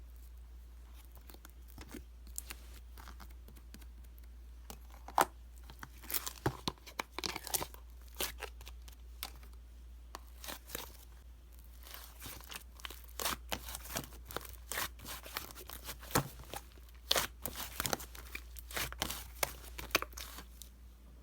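Close handling of crisp material: scattered short crackles, crinkles and rips, busiest in the second half, over a faint steady low hum.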